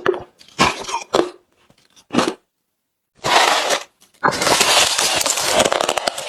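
Close-miked chewing of hard, refrozen crushed ice. A few separate crunches are followed by a second of silence, a short burst, and then a dense, continuous run of crunching from about four seconds in.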